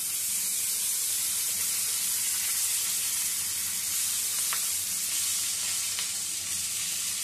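Raw green tomato slices sizzling in hot mustard oil in a wok, a steady high hiss as more slices are dropped in. Two faint clicks come about four and a half and six seconds in.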